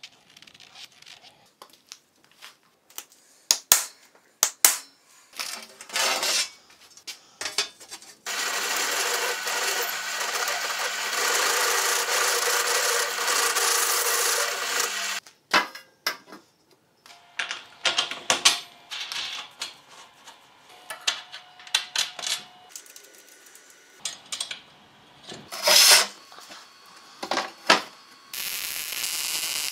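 Workshop sounds of metal parts and tools being handled, with scattered clicks and knocks. A power tool runs steadily for about seven seconds in the middle, and starts up again near the end.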